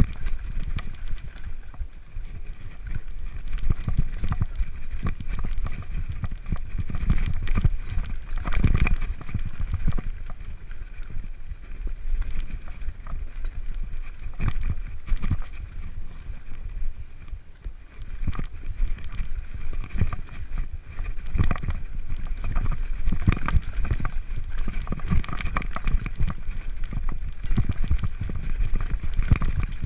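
Mountain bike rattling and clattering down a rocky trail, recorded by a camera mounted on the rider: irregular knocks as the wheels and suspension hit rocks, over a constant low rumble.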